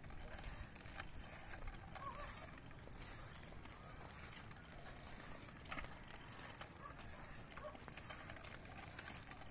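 Small plastic-and-rubber wheels of a child's bicycle with training wheels rolling over coarse asphalt, a steady rough rumble with light ticks. A high hiss pulses on and off about twice a second throughout.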